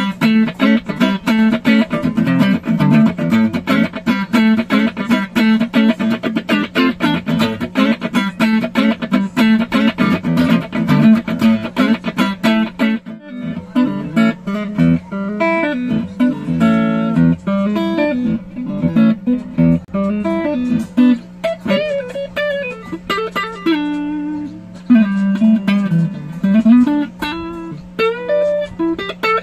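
JCRAFT S-2HC Strat-style electric guitar played through its neck pickup: a run of quick picked notes. After a short break about thirteen seconds in come slower phrases with bent and held notes.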